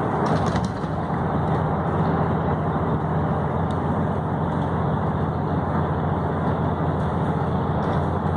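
Steady road and engine noise of a moving vehicle at highway speed, heard from inside the cabin.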